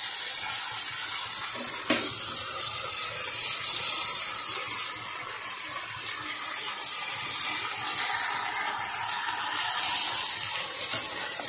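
Hot oil and tempering in a kadai sizzling with a steady high hiss as drained, boiled cassava pieces are scooped in with a metal slotted spoon. A sharp clink of the spoon against the pot comes about two seconds in.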